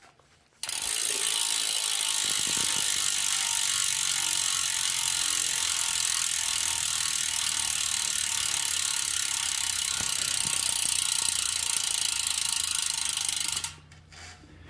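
Stan's Neos rear hub freewheeling: a loud, dense buzz of ratcheting pawl clicks, the 'swarm of angry bees' type, holding steady and then stopping abruptly near the end.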